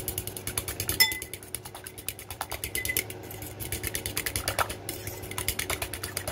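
Metal fork beating a raw egg in a ceramic bowl, clicking rapidly and evenly against the bowl. There is a louder, ringing clink about a second in.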